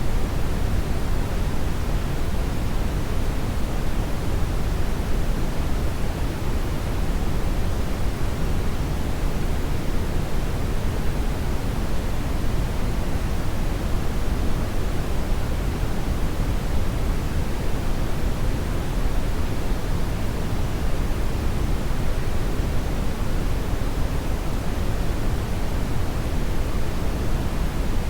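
Hair dryer blowing steadily: an even, unbroken rush of air, heaviest in the low end, with no change in speed or pitch.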